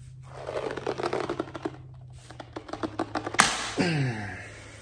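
Black disposable glove stretched hard by hand, the material crackling and squeaking under the strain, then one loud sharp snap about three and a half seconds in.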